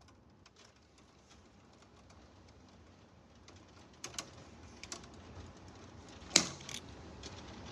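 Scattered light clicks and taps, a few sharper ones between about four and seven seconds in, the loudest about six and a half seconds in, over a faint hiss.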